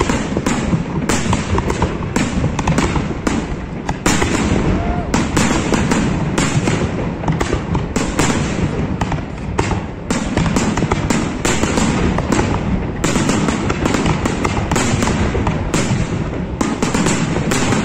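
Aerial fireworks shells bursting one after another in a dense, unbroken run of bangs and crackling, many reports every second.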